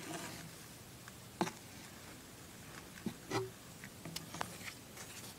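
Faint scratchy rustling of a hand working loose hermit crab tank substrate, with a few sharp clicks, the clearest about one and a half and three seconds in.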